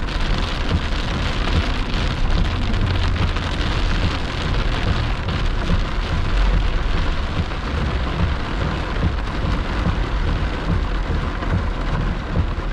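Heavy rain on a car's windshield and roof, heard inside the cabin while driving: a steady hiss with a deep, uneven rumble underneath.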